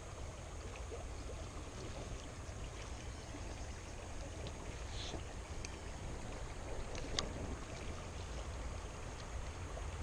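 Steady rush of shallow river water running over a rocky riffle, with a single sharp click about seven seconds in.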